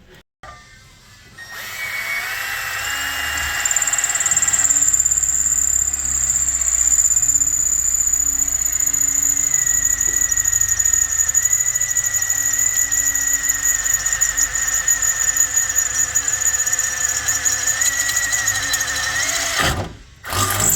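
Power drill with a Black Widow drill bit boring into stainless steel: the drill starts a second or two in and runs steadily with a high-pitched whine. Near the end it stops with a quick drop in pitch, followed by a brief short burst.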